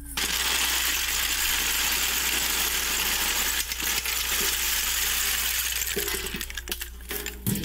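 Masses of snail shells clattering against each other and the metal basin as hands scoop and stir them, a dense rattle of many small clicks that thins to scattered clicks near the end.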